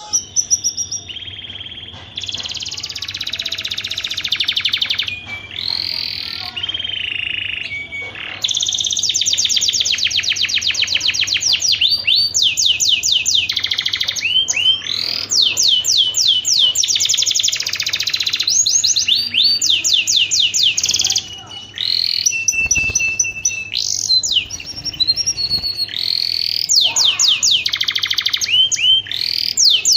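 Domestic canary in breeding condition singing a long, varied song of fast trills and rapid runs of repeated high notes, with a brief pause a little past the middle.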